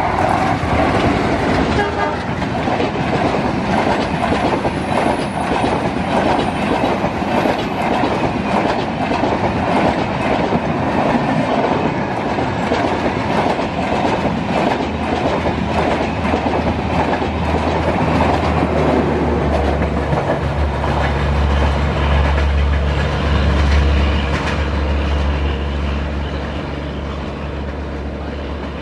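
An express passenger train hauled by a WDP-3A diesel locomotive rushes past at speed, its wheels clattering rapidly over the rail joints as the coaches go by. In the second half a steady low drone comes in, and the sound fades near the end as the train draws away.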